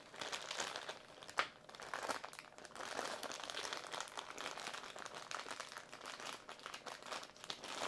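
Thin clear plastic bag crinkling and crackling as gloved hands work it open, with a sharper crackle about one and a half seconds in.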